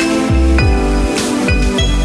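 Background electronic music: a deep bass drum drops in pitch on each hit, about every half second or so, under a melody of held notes.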